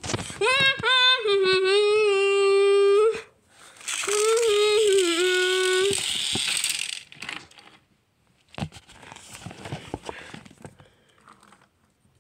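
A voice imitating a steam engine's whistle: two long held notes, the first about three seconds, the second about two, each opening with a short upward slide. After them come rustling handling noise and a few scattered light knocks.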